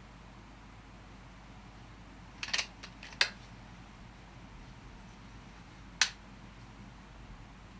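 A few sharp, short mechanical clicks from a scoped air rifle and its mounted gear being handled while aiming. There is a quick double click about two and a half seconds in, a sharper single click just after three seconds, and another single click at about six seconds.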